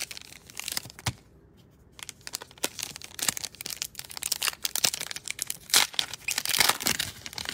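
Foil wrapper of a Panini Illusions basketball card pack crinkling and tearing as it is handled and opened by hand, in irregular crackly bursts that are loudest near the end.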